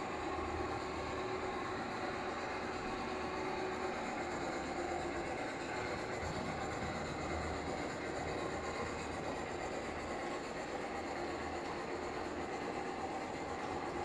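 LGB garden-scale model steam locomotive pulling passenger cars along the track, a steady whirring of its electric motor and rumble of wheels on the rails.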